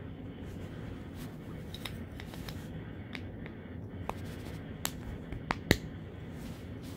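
Sharp plastic clicks and scrapes, about a dozen, as a plastic airplane model is forced onto the peg of its display stand, the loudest click a little before the end.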